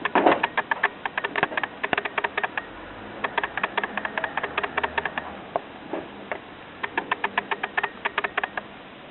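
Runs of quick, light clicks, several a second, in bursts of a second or two with short pauses between: a cat batting at an electric fan.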